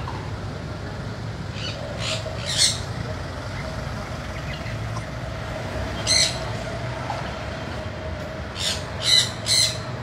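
Sun conure giving short, shrill screeches: a couple about two seconds in, one at six seconds and a quick run of three near the end, over a steady low hum.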